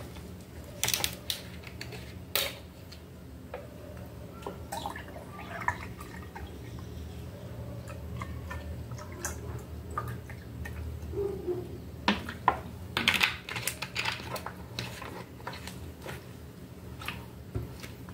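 Grape juice poured from a plastic bottle into a glass, with sharp clicks and knocks from the bottle and its cap about a second in and again around twelve to fourteen seconds in.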